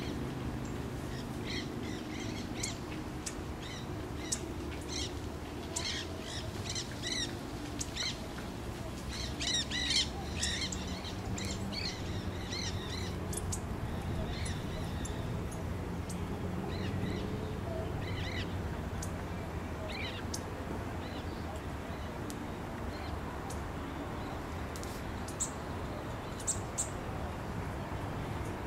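Several birds giving short repeated calls, dense in the first half and thinning out later, over a steady low rumble.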